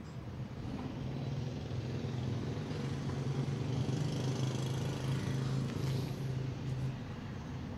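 A motor vehicle's engine running, a low steady hum that grows louder through the middle and fades away near the end, as when it passes by.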